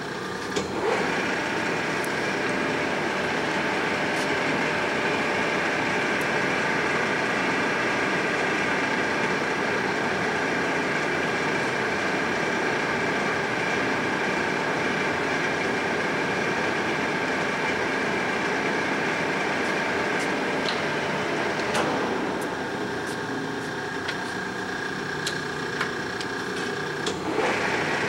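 Clausing Colchester Mascot 1600 engine lathe running under power, its headstock and feed gearing giving a steady mechanical whine. A click about six seconds before the end thins the whine, and another click near the end brings the fuller tone back.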